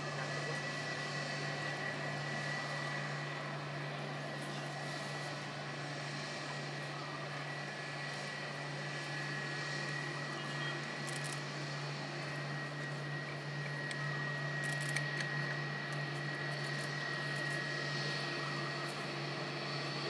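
Boeing 777-300ER's GE90 jet engines running at low power as the airliner taxis: a steady whine with a thin high tone.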